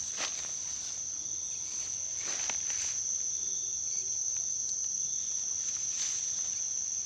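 A steady, high-pitched chorus of night insects, crickets or similar, runs without a break. Short rustles of foliage come just after the start, about two and a half seconds in, and near six seconds.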